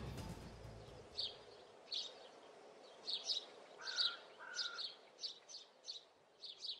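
Birds chirping faintly: a run of short, high chirps starting about a second in, with two short lower whistled notes about four seconds in.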